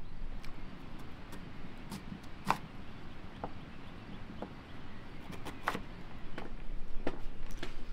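Kitchen knife slicing beetroot on a wooden cutting board: irregular sharp taps of the blade striking the board, a few seconds apart.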